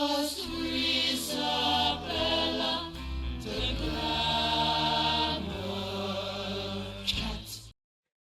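A musical number from a film soundtrack: voices singing held, wavering notes over instrumental backing. It cuts off abruptly near the end.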